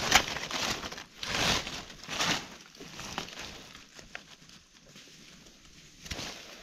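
Dry leaf litter crunching and rustling in a few short bursts, loudest in the first couple of seconds with a smaller one near the end.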